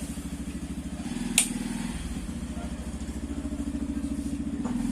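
Hero iSmart 110's single-cylinder four-stroke engine running at idle with an even pulsing beat and one sharp click about a second and a half in. It is making an abnormal engine noise that should not be there, linked to its timing chain and tensioner.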